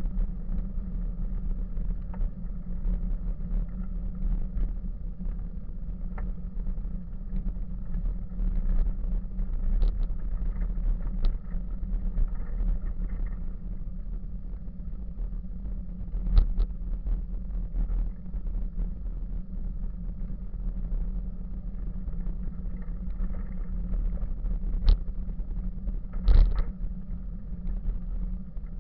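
Bicycle riding over a dirt forest track, heard as a steady low rumble of tyre vibration and wind on the bike-mounted camera's microphone, with a few sharp knocks as the bike goes over bumps.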